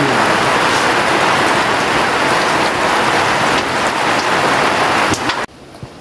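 Heavy rain falling steadily as a dense, even hiss with a few louder drops. About five and a half seconds in it cuts off abruptly to a much quieter background.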